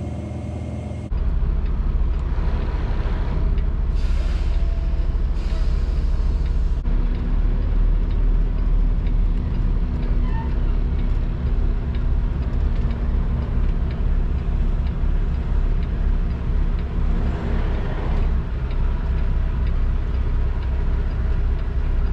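Semi truck's diesel engine running, heard from inside the cab as the truck moves across the yard, getting louder about seven seconds in. Short hisses of air about four and six seconds in, from the truck's air brakes.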